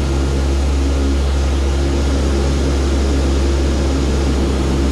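NASA C-130's four Allison T56 turboprop engines and propellers running at takeoff power as the takeoff roll begins, heard from the flight deck as a loud, steady drone with several steady propeller tones.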